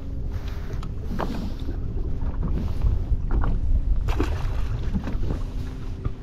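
Strong wind buffeting the microphone over choppy water slapping against a small boat, with a few short splashes or knocks and a faint steady hum underneath.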